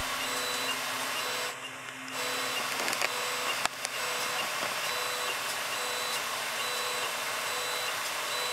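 A Monoprice Maker Select 3D printer fitted with an E3D Titan Aero extruder is printing. Its fans make a steady hiss, and the stepper motors whine in short on-off tones as the print head moves. There is a brief quieter dip about two seconds in and a single click a little before four seconds.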